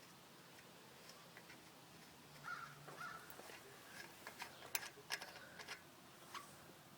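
Scattered light clicks and taps from working a 15 mm wrench on a bike's front-wheel axle nut, with a few short squeaks about two and a half seconds in. The sharpest clicks come about five seconds in.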